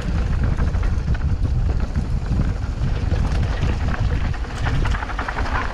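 Wind buffeting the microphone of a mountain bike descending a dirt trail at speed, with the tyres rolling over loose dirt and the bike rattling over bumps.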